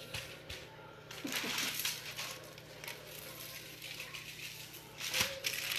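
Dry spice rub being shaken onto a rack of ribs and worked in by a gloved hand, with the aluminium foil underneath crinkling: irregular scratchy rustling that swells twice, with a sharp click about five seconds in.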